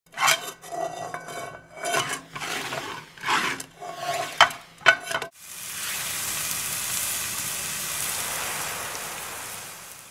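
A utensil stirring and scraping in a pan, with two sharp clinks about four and a half seconds in, then green herb seasoning sizzling steadily in the hot pan, the sizzle fading out near the end.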